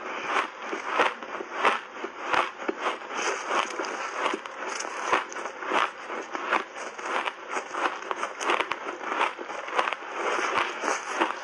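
Close-miked crunching of refrozen shaved ice bitten and chewed in big mouthfuls: a rapid, uneven run of crisp crunches.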